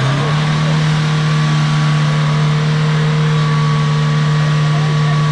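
Off-road SUV's engine revved up and held at a steady high pitch, its rear wheel spinning in deep mud as the vehicle tries to drive out of the bog.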